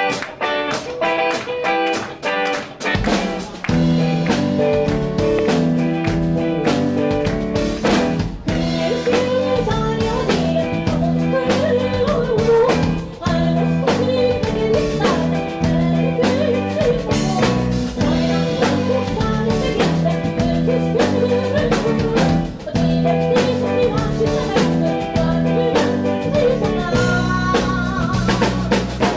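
Live band playing a song: electric guitar alone at first, then low bass notes and drums come in about three seconds in, and a woman's lead vocal enters about eight seconds in and carries on over the band.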